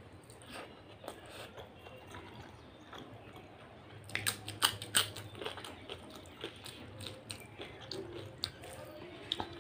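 Close-up eating sounds: soft chewing of hand-fed rice congee, then about four seconds in a potato chip is bitten, giving a quick run of sharp crisp crunches, the loudest part, followed by more chewing.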